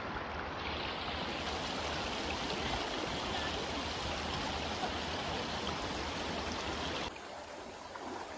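Shallow, stony river running over gravel: a steady rush of flowing water that drops a little in level near the end.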